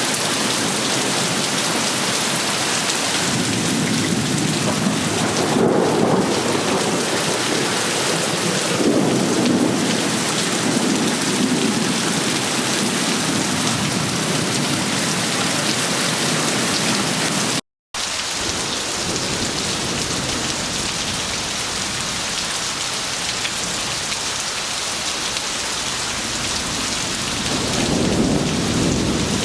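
Heavy rain pouring steadily, with low rumbles of thunder swelling a few times: about five seconds in, around ten seconds, and again near the end. The sound cuts out completely for a split second a little past the middle.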